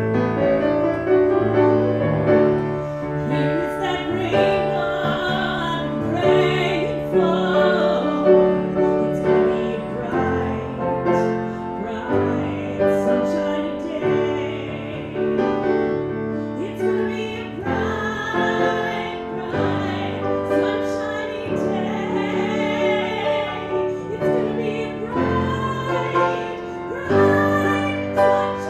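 A woman singing a song with piano accompaniment.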